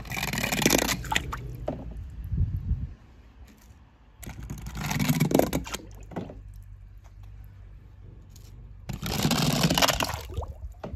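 Small die-cast toy cars rattling down a ramp of popsicle sticks and dropping into a plastic tub of water, three times, each run lasting about a second and a half.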